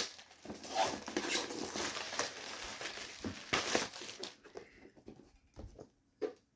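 Product packaging being handled and opened: steady crinkling and rustling with small clicks for about four seconds, then a few scattered taps.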